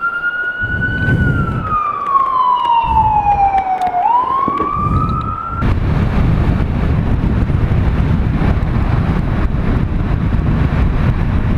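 Emergency vehicle siren in a slow wail: one tone slides down over about three seconds, swings back up, then cuts off about six seconds in. After that, steady wind noise on the microphone and the motorcycle's engine rumble fill the rest.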